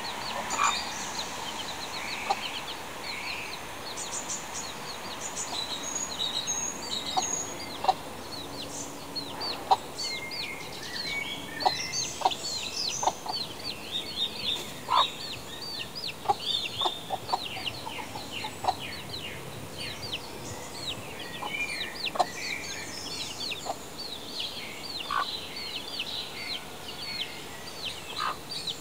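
Young chicken peeping: many short, high-pitched chirps in quick succession, several a second, with a few lower, shorter notes in between.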